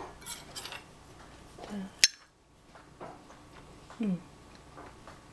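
A single sharp clink of a glass jar against a ceramic bowl about two seconds in, as homemade yogurt is poured; otherwise quiet, with a couple of brief murmured vocal sounds.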